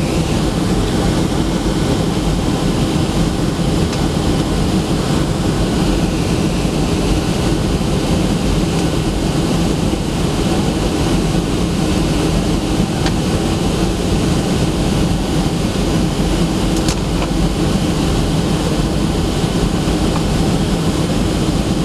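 Steady cabin noise inside a Boeing 757 airliner during its descent: the even hum of the jet engines and rushing airflow, heard from a window seat by the wing.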